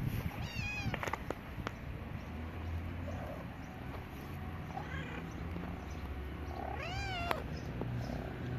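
Cats meowing: a high, short meow about half a second in and a lower meow that rises and falls near seven seconds, with a few faint calls between, over a low steady hum.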